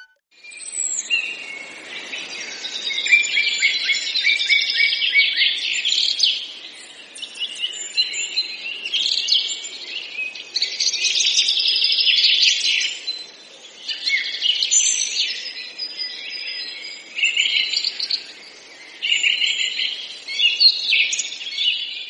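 A chorus of small songbirds chirping and trilling over one another, busy throughout with a few short lulls.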